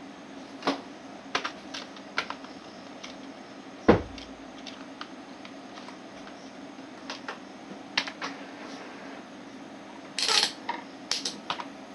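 Computer keyboard keys pressed slowly one at a time: sparse single clicks, a heavier knock about four seconds in, and a quick cluster of key clicks near the end, over a faint steady hum.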